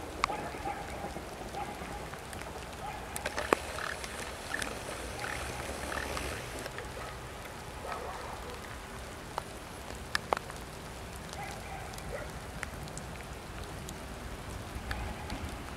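Steady rain falling, with scattered sharp drips tapping close by.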